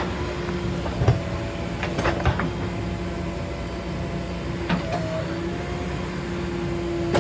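Backhoe loader's diesel engine running steadily, with a few sharp knocks about one, two and nearly five seconds in.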